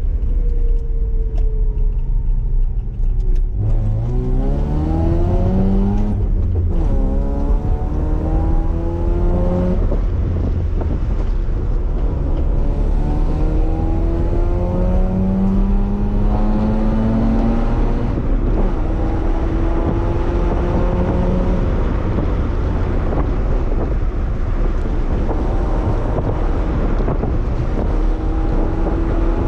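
A 1997 Toyota 4Runner's engine accelerating the truck through its gears: the pitch climbs steadily for several seconds, drops back at each shift and climbs again. A constant low road rumble runs underneath.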